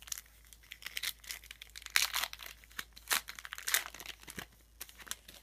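Plastic wrapper of a pack of trading cards crinkling and tearing as it is opened, an irregular run of sharp crackles that is loudest near the middle.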